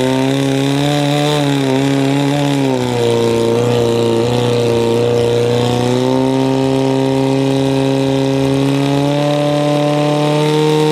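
Portable fire pump's engine running hard at high revs while it drives water out through the hoses to the nozzles. Its pitch wavers, sags about three seconds in, then climbs back and holds steady, rising a little near the end.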